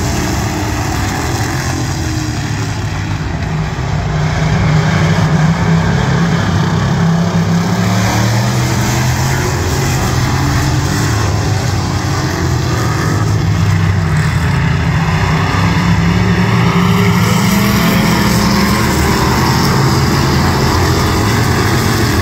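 A field of figure-8 stock cars racing together, their engines running hard, the pitch rising and falling as the cars speed up and slow down. The sound gets louder about four seconds in as the pack comes by.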